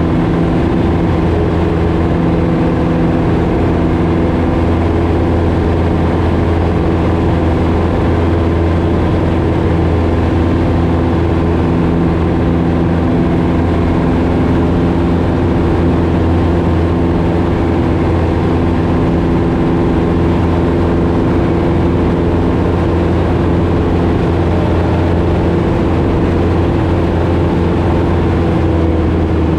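Piper Super Cub's engine and propeller running steadily at constant power in level flight, heard from inside the cabin.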